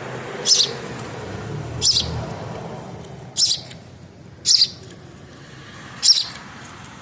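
A young bird that has left its nest chirping: five short, high peeps, about one every second and a half.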